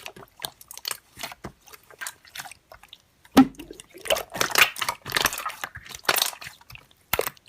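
Slime being squeezed and pressed by hand, making irregular wet clicks, pops and squishing, busier about halfway through.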